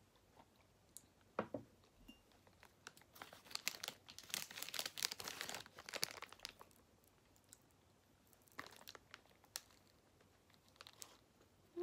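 A single knock about a second and a half in, then the plastic wrapper of a wrapped pizza crinkling for a few seconds as it is peeled back. A few more crinkles and a bite come near the end.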